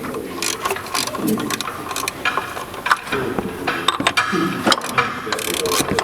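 Hand ratchet wrench clicking in irregular runs as a fastener is turned.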